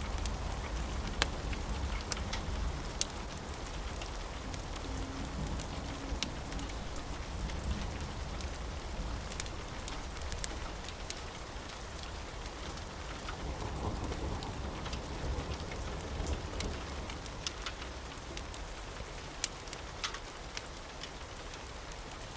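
Steady rain falling, with a low rumble of thunder that is strongest at the start and slowly eases off. Occasional sharp crackles and pops sound over the rain.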